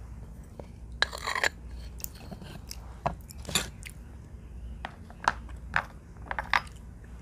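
Dry edible clay crunching and clicking, being chewed and handled: a short cluster of sharp crunches about a second in, then scattered single clicks.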